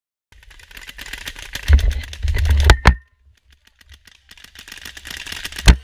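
Rattling and scuffing of a rail-mounted paintball launcher and gear as the carrier moves at speed, with wind buffeting the microphone. Two sharp knocks, a little under halfway and again near the end, are the loudest sounds.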